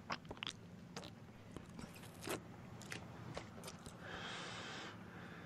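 A man hawking up phlegm to spit: a run of small wet mouth and throat clicks, then a drawn-out raspy hiss about four seconds in that lasts nearly a second.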